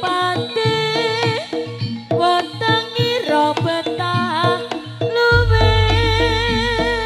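Live jaranan music: a wavering, pitch-bending melody line over sharp hand-drum strokes. About five seconds in, a deep sustained low tone joins.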